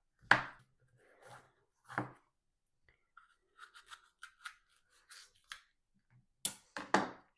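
Kitchen work at a counter: a few irregular knocks, with a run of light, quick clicks and scrapes in between.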